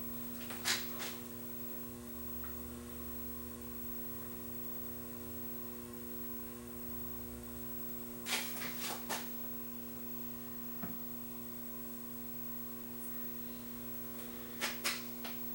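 Steady electrical hum from a running Panasonic plasma TV, with a few faint knocks, most of them in a cluster about eight seconds in.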